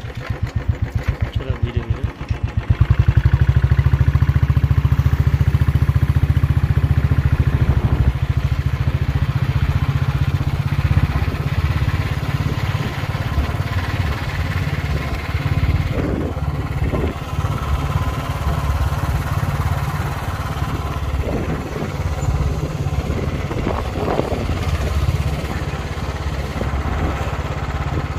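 A motorcycle engine running under way, heard from on the moving bike, its rapid firing pulses steady throughout and getting louder about three seconds in.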